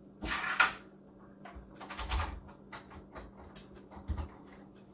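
Household clatter: a short scraping rustle that ends in a sharp knock, a dull thump about two seconds in, scattered light clicks, and another dull thump near the end.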